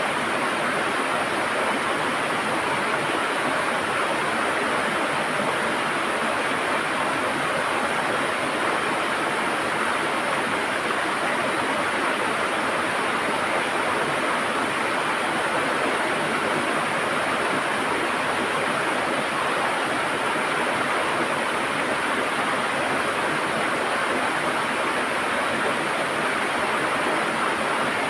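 River water rushing and gurgling steadily, an unbroken wash of sound.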